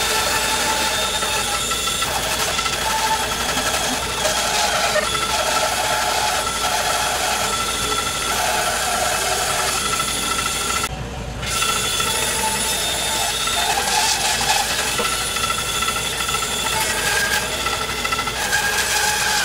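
A 14-inch bandsaw running and cutting through a large cherry log, with a dust collector running alongside: a steady mechanical noise with a constant high whine, dropping out briefly about eleven seconds in.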